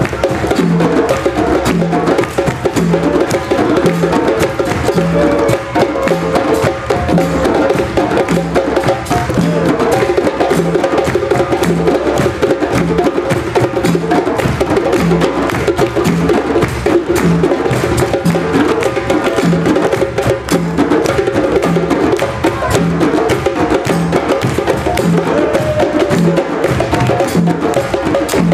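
A djembe ensemble playing together: many hand drums in a fast, dense interlocking rhythm, with a deep bass stroke about once a second.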